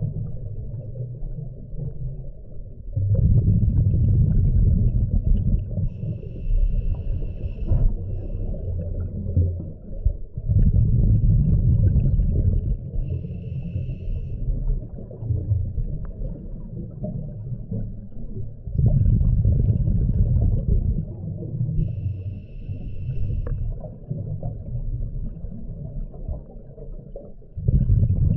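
Scuba diver breathing through a regulator underwater. Each breath is a short hiss on the inhale, then a loud low bubbling rumble of exhaled bubbles lasting two to three seconds, four times, about every eight seconds.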